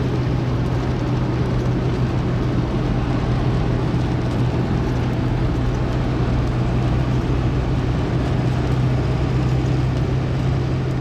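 Steady drone of a car on the move: a constant low engine hum over road noise, unchanging throughout.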